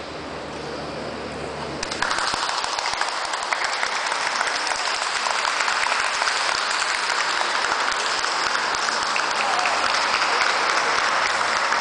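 A crowd of spectators applauding. The clapping breaks out suddenly about two seconds in and then keeps going steadily as many rapid, overlapping claps.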